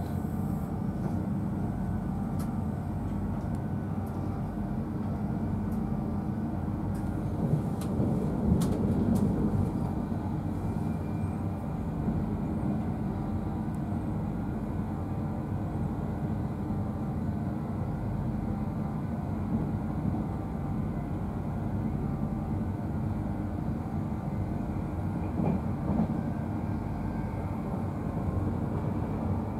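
Inside an InterCity 225 passenger coach at speed: steady rumble of steel wheels on rail with a low hum. A brief run of clicks and knocks, with the rumble swelling, about eight seconds in.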